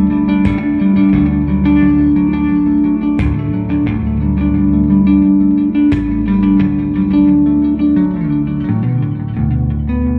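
Squier Bass VI, a six-string bass tuned like a guitar an octave down, played with a pick through a rhythmic delay. Repeating picked notes ring over one another, with a low line sounding underneath.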